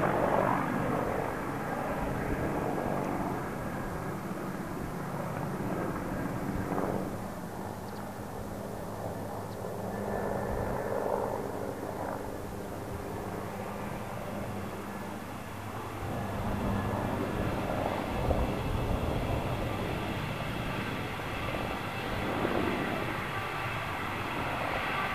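Mi-24P attack helicopter in flight: the whine of its twin turboshaft engines over the sound of its main rotor, the level swelling and fading as it manoeuvres. The turbine whine grows stronger in the second half.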